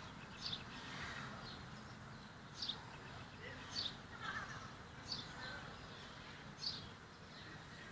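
A bird chirping: five short, high, downward-sliding notes spaced irregularly about one to two seconds apart, over a faint steady hiss.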